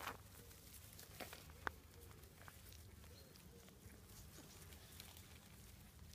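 Quiet sounds of month-old Staffordshire bull terrier puppies moving about on grass: a few soft clicks and rustles in the first two seconds and faint, wavering high whimpers.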